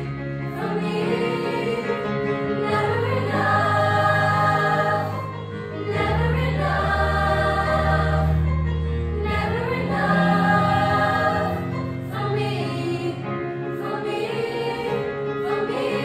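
A teenage school choir singing in harmony over instrumental accompaniment, the voices sliding up into held chords several times over sustained low notes.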